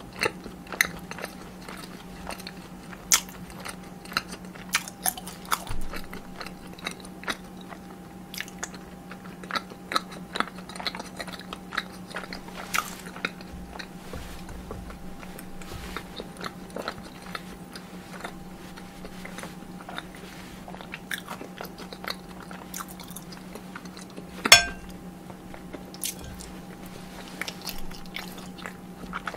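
Close-miked eating: biting and chewing with crisp crunches and many small sharp clicks, one click louder than the rest near the end.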